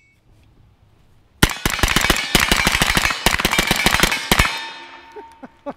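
Freedom Ordnance FX-9 9mm carbine fired rapid semi-automatic, a fast string of shots starting about a second and a half in and lasting about three seconds, the echo dying away after the last shot. A single click comes near the end.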